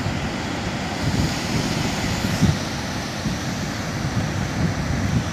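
Wind buffeting the microphone: a steady rushing hiss with irregular low rumbling gusts, the strongest about two and a half seconds in.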